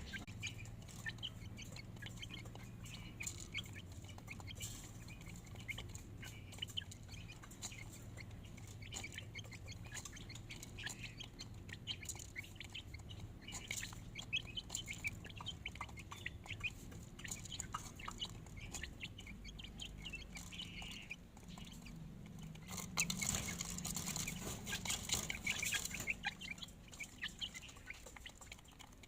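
Chickens clucking while feeding, with many small quick taps throughout. There is a louder noisy patch about three quarters of the way in.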